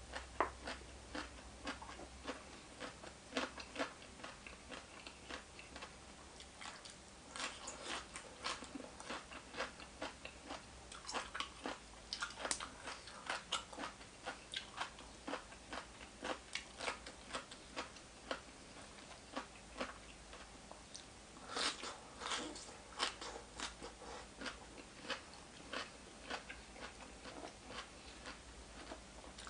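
Close-miked eating: a person biting and chewing crunchy food, with irregular crisp crunches and mouth sounds that come in denser bursts several times.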